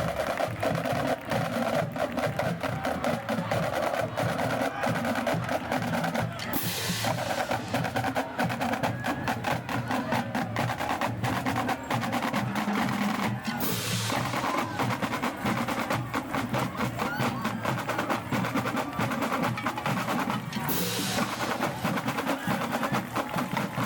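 A marching band drumline playing a steady cadence of dense drum strokes, with a cymbal crash about every seven seconds.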